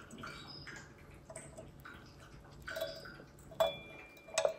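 Light handling noises at the brass movement of an Atmos 528 clock as a thin tool is worked in at the regulator's castle nut: soft clicks and rustles, then two sharper metallic clicks near the end, the first leaving a brief ringing.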